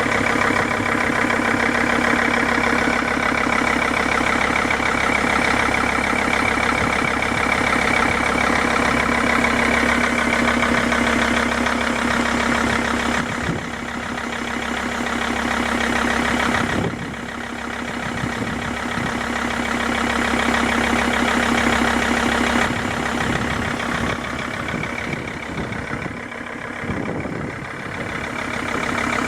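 Mercedes-Benz W211 E-Class engine idling with a rapid, steady knocking in time with the engine. It dips in loudness a few times.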